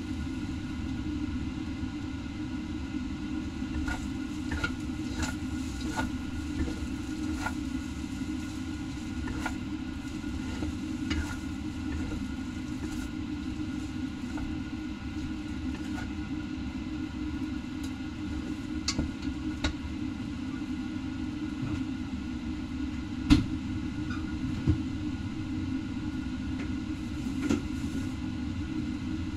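Noodles being stir-fried in a large steel wok: a steady low rumble, with scattered taps and scrapes of bamboo chopsticks and a wooden spatula against the pan. A sharper clack comes late on.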